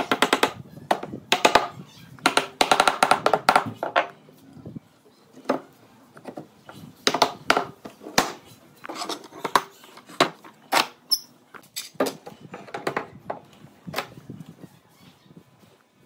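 Wooden mallet knocking on a pine frame to seat its joints: quick runs of light taps for the first few seconds, then separate knocks spaced out.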